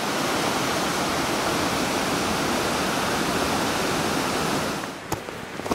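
Steady rushing of the Little North Santiam River's fast water. The rush drops away near the end, with a couple of sharp clicks after it.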